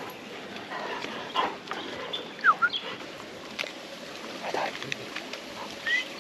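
German shorthaired pointer whining in a few short, high whimpers that slide down or up in pitch, with scattered clicks and rustles.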